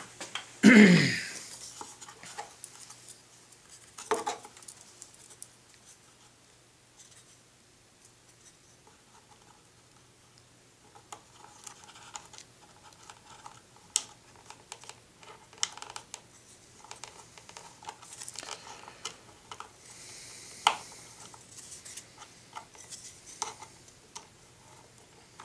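Hand-handling sounds: plastic spring clamps clicking and a wooden measuring stick scraping as they are fitted to a plastic engine mount, in scattered sharp clicks with quiet gaps between. A loud, short sound falling in pitch comes about a second in.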